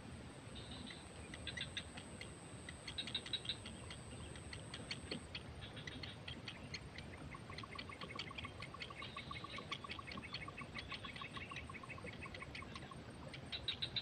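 Heron nestlings begging in the nest: repeated bursts of quick, high clicking chirps. From about halfway a fast, even pulsing trill, typical of an insect, runs underneath for several seconds.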